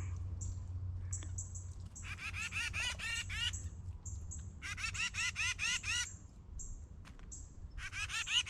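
Small woodland songbirds (chickadees, titmice and nuthatches) calling at a hand feeder: three bouts of rapid nasal notes, several a second, with short, thin, high-pitched calls scattered between them.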